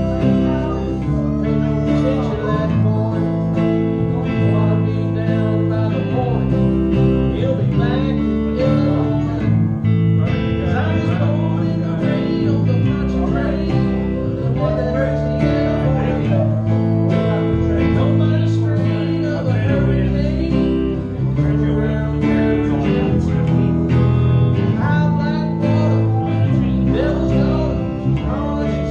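Live country-style music from a small band: guitars, acoustic among them, strummed and picked steadily, with a singer.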